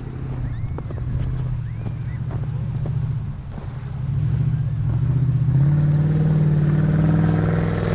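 A 4x4 SUV's engine running under load as it pushes up through deep snow; about halfway through it revs higher and louder and holds there.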